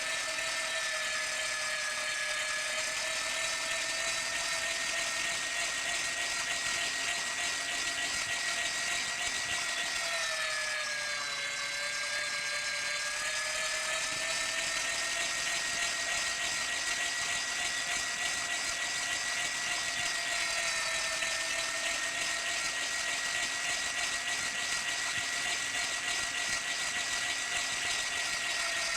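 Meat grinder motor running with a steady whine. Its pitch sags for a few seconds about ten seconds in, then climbs back, and dips slightly again later.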